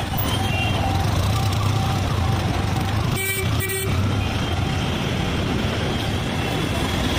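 Auto-rickshaw ride through traffic: a steady engine and road rumble, with a vehicle horn tooting twice about three seconds in.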